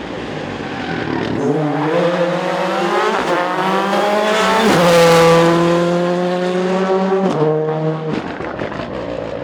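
Rally car engine running at full throttle on a closed asphalt stage as the car passes by. The engine note climbs and shifts pitch with the gear changes, is loudest about five seconds in, then the engine cuts off and fades.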